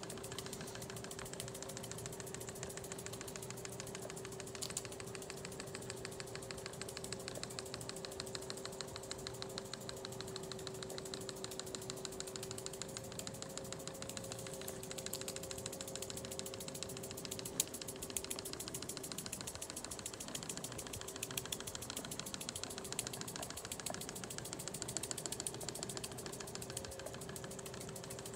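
A small model steam traction engine running and driving itself along, with a rapid, even mechanical clatter and a steady faint hum underneath.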